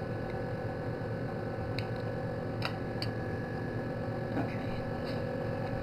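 Steady electrical hum with a few faint, short clicks.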